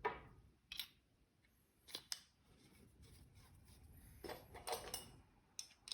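Faint clicks and short scrapes of a paint spray gun's parts being handled and fitted by hand. A sharp click right at the start, a few more clicks, and a longer rubbing scrape about two-thirds of the way through.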